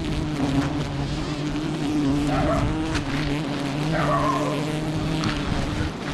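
Mass buzzing of a swarm of giant honeybees around their open comb, a steady droning hum, with single bees whizzing past close by about two and four seconds in. The colony is agitated by smoke from a palm-leaf torch held against the comb.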